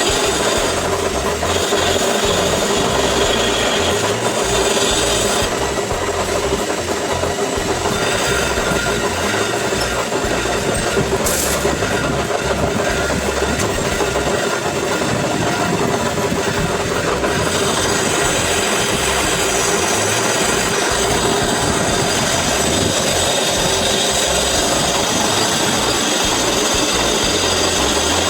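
Lathe running steadily while its cutting tool scrapes across the face of a Renault Kwid brake disc, resurfacing the worn rotor; a steady hum of the machine under a continuous rough grinding noise.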